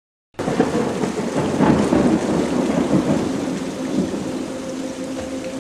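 Rain falling with a low rumble of thunder, starting suddenly about a third of a second in after a moment of silence. The rumble is strongest over the first few seconds and then eases slightly.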